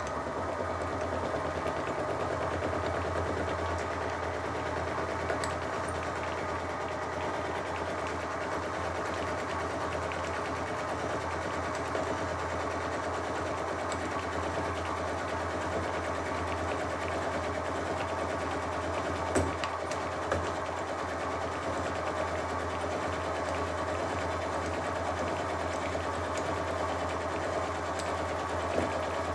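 Sieg SX2P mini mill running under load, its spinning cutter milling a block of aluminium with a steady motor hum and cutting chatter. Two sharp ticks stand out about two-thirds of the way through.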